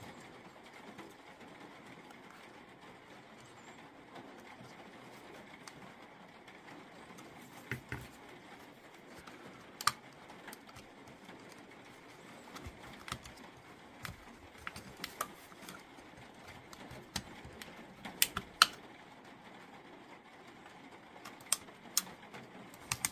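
Irregular small, sharp clicks and taps of metal hand tools against a lithium-ion battery pack's circuit board and plastic case during desoldering, more frequent in the second half, over a faint steady background hiss.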